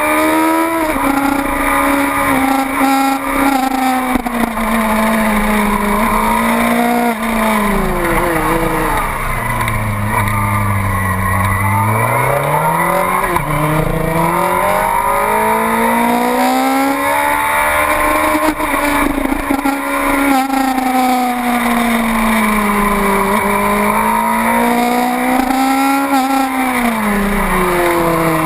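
Yamaha YZF-R6 sport bike's inline-four engine heard on board at high revs, its pitch rising and falling with the throttle. The revs fall sharply about ten seconds in, then climb back up.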